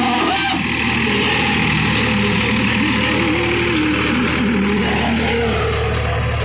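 Powertrac ALT 4000 tractor's diesel engine running steadily under load while pulling a cultivator through the soil.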